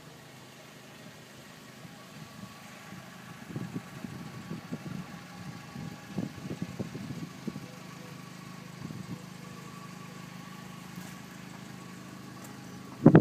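A steady mechanical hum from a parked VW New Beetle cabriolet, from its running engine or the power-top mechanism. It is broken by irregular low knocks between about three and eight seconds in.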